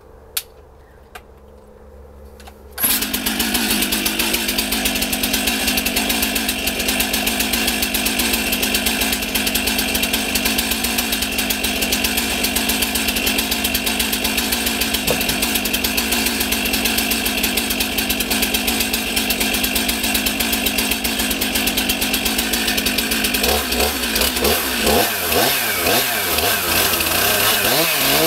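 Stihl MS 362 two-stroke chainsaw engine starting abruptly about three seconds in, after a couple of faint clicks, then running steadily; near the end the throttle is blipped, the engine speed rising and falling unevenly.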